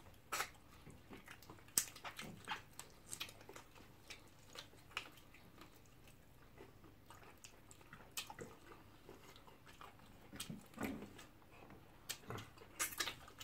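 Close-miked eating sounds: irregular wet mouth smacks, lip clicks and chewing as two people eat fish and chicken off the bone by hand, fairly quiet, with a few louder smacks near the end.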